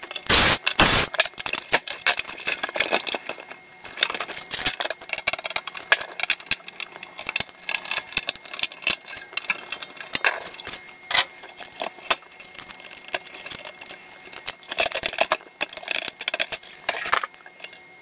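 Rapid, dense clicking and clattering of hands and tools on a Technics SL-1301 turntable as screws come out and its bottom plate is taken off. The footage is sped up, so the handling noises crowd together into a fast rattle.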